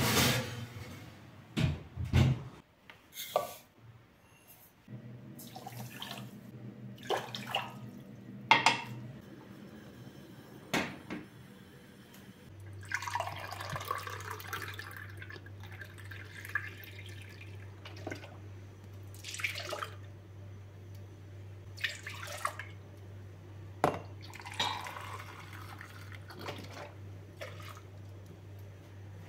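A few knocks as the oven door is shut, then milk poured from a drinking glass into a stainless steel pot three times, each pour a rushing splash a couple of seconds long, over a low steady hum that starts partway through.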